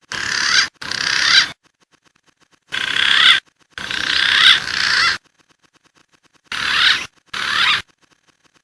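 Green pigeon (punai) calling loudly: wavering whistled phrases in three pairs, each pair lasting a second or two, with short gaps between the pairs.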